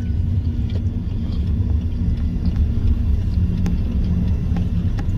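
Steady low vehicle rumble with a faint hum, and a single soft click about three and a half seconds in.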